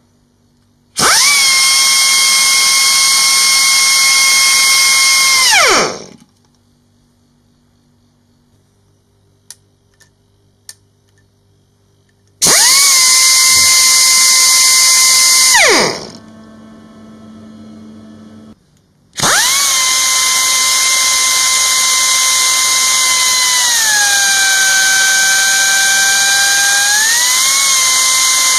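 MYTON MYG-40 pneumatic grinder running on compressed air: a high whine over air hiss that starts and stops three times, with a few sharp clicks between the first two runs. In the last run the whine drops in pitch and then rises again as the rotation speed is turned down and back up.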